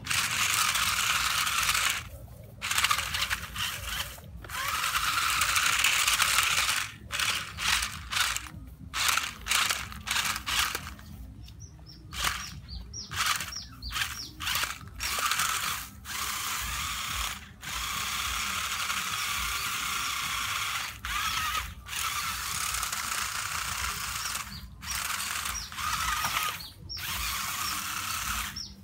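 Toy RC stunt car's small electric motors and plastic gearboxes whirring and grinding in stop-start runs, lasting from a fraction of a second to several seconds with brief pauses between them. Its mecanum-style roller wheels are scrabbling over dry leaves and dirt.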